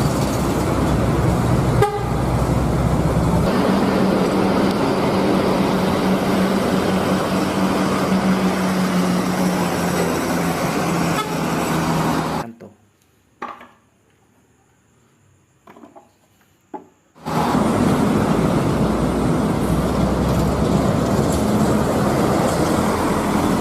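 Road traffic: vehicle engines running steadily with horn toots. The sound drops out to near silence for about five seconds past the middle, then comes back.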